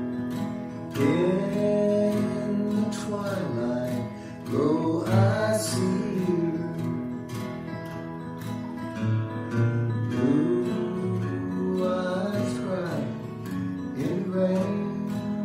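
Acoustic guitar strummed and picked in a slow country ballad, with a man singing over it in several phrases, the sound carrying a slight delay echo.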